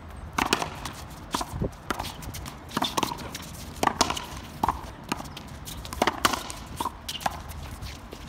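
Outdoor racquetball rally: a quick run of sharp knocks as the ball is struck by racquets and rebounds off the concrete wall and court, often in close pairs.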